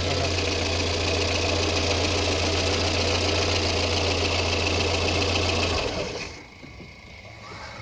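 Car engine running steadily, then switched off about six seconds in, its sound dying away.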